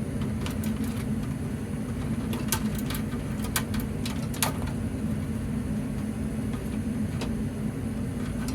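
Steady low mechanical hum, with a handful of short sharp clicks and taps from tools and wires being handled at a fire alarm control panel as its circuits are disconnected.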